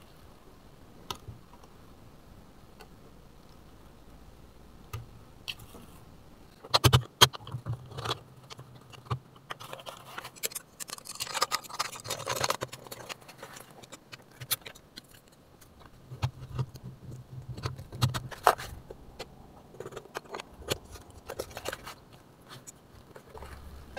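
Hard plastic toy parts clicking, knocking and rattling as a toy play-dough noodle press is handled, its crank handle and holed die plates taken off and fitted back on. A few scattered clicks at first, then busier from several seconds in, with the loudest knocks at that point.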